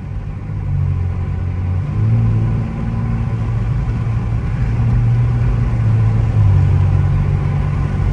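Cadillac CT4-V Blackwing's twin-turbo V6 with catless downpipes, heard inside the cabin while cruising: a steady low exhaust drone over road noise. It steps slightly in pitch about two seconds in and again near the end.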